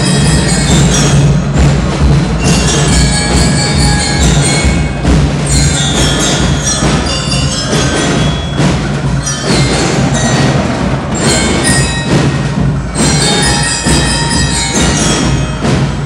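A school marching band playing, with glockenspiels carrying the melody in short ringing notes over drums.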